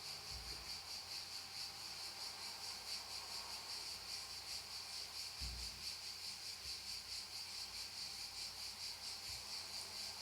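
Faint, steady high-pitched chirping like insects, pulsing evenly about four to five times a second, with a soft low thump about five and a half seconds in.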